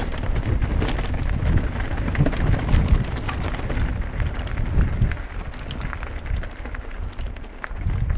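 Mountain bike running fast downhill over loose slate: knobbly tyres crunching and clattering on the stones, the bike rattling, and wind buffeting the camera microphone as a low rumble. The clatter eases a little in the last few seconds as the ground gets smoother.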